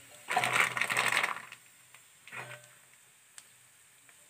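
A crinkly rustle and rattle lasting about a second, then a shorter, softer one: makhana (fox nuts) being handled in their plastic packet before they go into the hot ghee.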